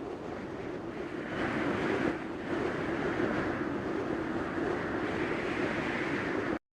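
Kinemaster 'Blurred' sound effect: a steady, muffled rushing rumble that gets a little louder after about a second and a half and cuts off abruptly near the end.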